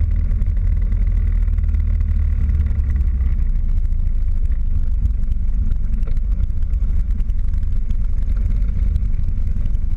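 Excelsior-Henderson V-twin motorcycle running at cruising speed, its low engine rumble mixed with heavy wind buffeting on the bike-mounted microphone.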